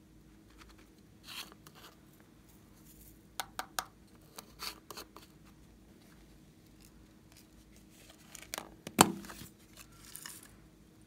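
Small plastic containers of slime toppings being opened and handled: scattered light clicks and crackles, and one sharp snap about nine seconds in, the loudest sound.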